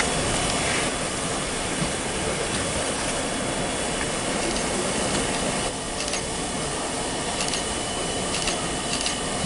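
Two steam locomotives double-heading a train, rolling slowly with a steady hiss of steam escaping at the cylinders. A few sharp clicks come in the second half.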